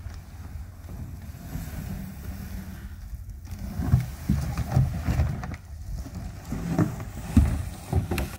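Wind buffeting the microphone throughout. From about halfway, plastic drums and cans tied to a rope scrape and knock over grass and stones as they are dragged.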